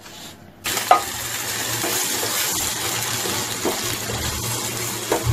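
Spice paste in hot ghee and oil sizzling hard as water meets it, stirred with a wooden spatula that clicks now and then against the pan. The sizzle starts suddenly under a second in.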